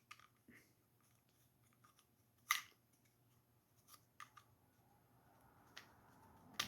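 Faint, scattered clicks and taps of washing machine agitator parts being handled and fitted together, with one sharper click about two and a half seconds in.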